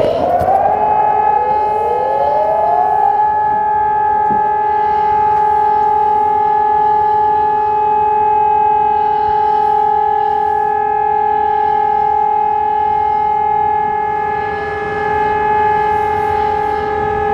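Singapore Public Warning System electronic sirens (Hörmann ECN 1200 and ECN 2400 compression-driver horn arrays) sounding the Short Alert steady-tone signal. The tone rises to pitch at the start, more sirens join with their own rising glides over the first few seconds, then a higher and a lower steady tone hold.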